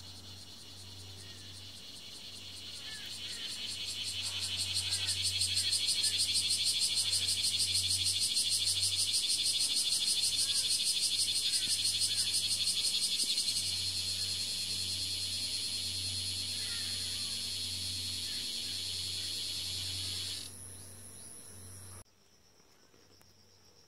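Cicada song: a high, fast-pulsed buzz that swells in over the first few seconds, holds loud, eases somewhat about halfway through and stops near the end.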